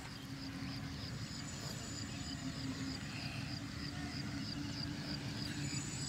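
Outdoor ambience: a high-pitched chirp repeating evenly about five times a second, over a steady low hum and a low rumble of wind.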